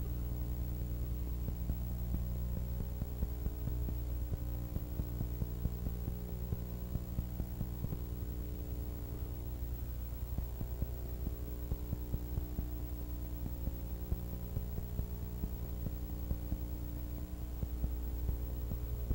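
Steady electrical mains-type hum with a stack of even overtones and a faint, constant crackle. No live sound from the filmed scene comes through.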